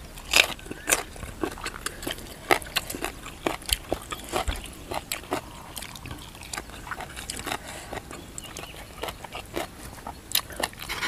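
Close-up chewing of crunchy food, green papaya salad and raw green vegetables: irregular crisp crunches and mouth smacks, a few a second.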